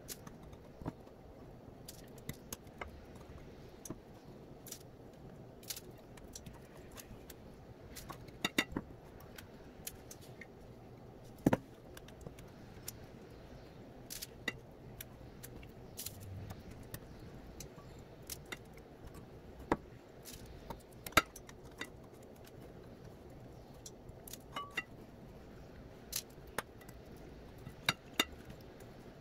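Scattered, irregular light clicks and taps of fingers and raw chicken pieces against ceramic bowls and a foil-lined baking sheet as the chicken is dipped in oil and rolled in breadcrumbs.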